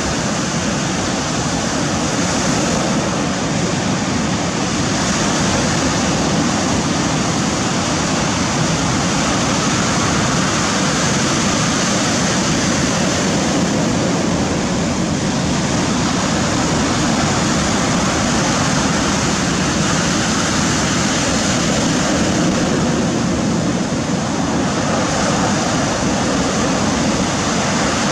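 Surf breaking and washing up over a pebble beach, a steady rush of water.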